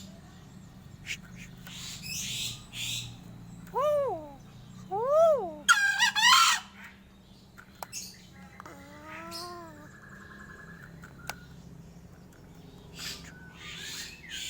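A crow making a string of odd calls: two rising-then-falling calls about four and five seconds in, a loud harsh call just after, then a lower wavering call and a short buzzy rattle.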